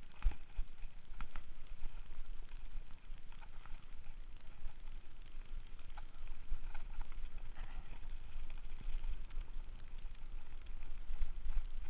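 Mountain bike rolling fast over a dirt fire road: a low, uneven rumble of tyres and wind on the microphone, with scattered clicks and rattles from the bike over bumps.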